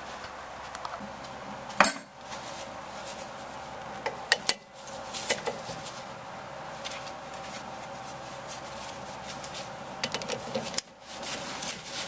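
Ratchet and socket clinking against the rear brake caliper's 14 mm slide bolt as it is fitted and worked. There are a few sharp metal clinks, the loudest about two seconds in and about four and a half seconds in, with smaller clicks later, over a steady hum.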